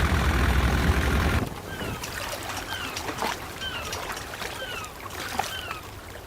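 A loud, steady rushing roar cuts off about one and a half seconds in, giving way to a quieter outdoor water ambience in which a bird repeats a short falling chirp about once a second.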